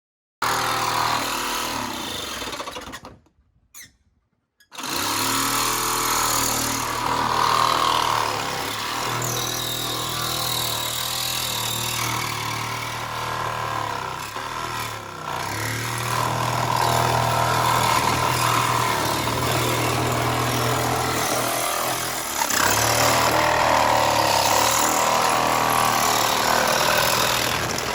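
A power tool running steadily with a low hum, cutting out briefly about three seconds in and then running on.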